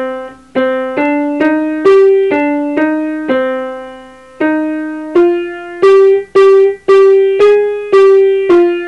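Piano playing a slow single-note melody, one note at a time in the middle register, about two notes a second; some notes ring on and others are cut short.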